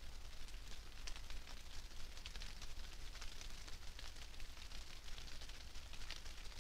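Rain falling and dripping on the leaves of forest undergrowth: a steady, irregular patter of many small ticks over a faint low hum.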